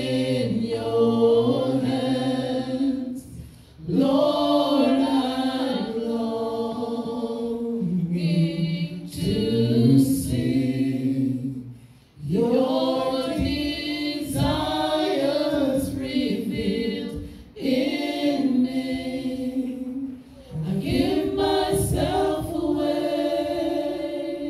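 Several women singing a slow worship song together into microphones, in long held phrases with short breaks between them.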